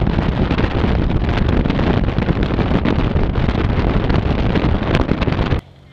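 Heavy wind buffeting on the microphone as a bass boat runs at speed across the lake, its outboard motor buried under the rush of wind. It cuts off suddenly near the end.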